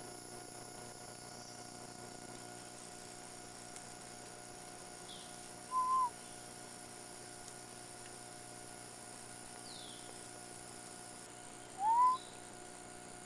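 Two short, clear animal calls about six seconds apart, each under half a second, the second rising in pitch, over a faint steady electronic hum.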